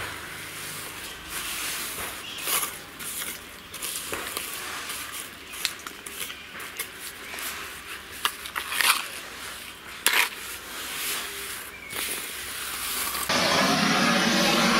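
A trowel scraping and smoothing wet cement over the oven, an irregular run of short scratches and scrapes. Near the end a louder steady sound starts suddenly.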